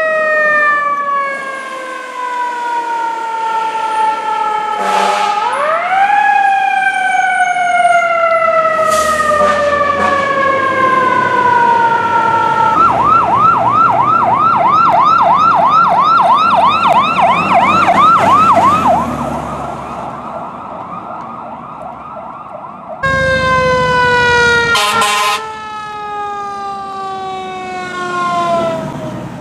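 Fire truck sirens: a siren winding down in a long falling pitch, wound up again about five seconds in and coasting down again, with short horn blasts. Then an electronic yelp siren warbles rapidly for about six seconds, and near the end a loud horn blast comes with another siren falling in pitch.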